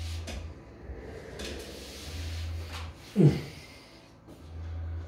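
Rustling and movement as a person gets up from a mesh office chair and steps over to a pull-up bar, with a short, loud sound falling in pitch about three seconds in.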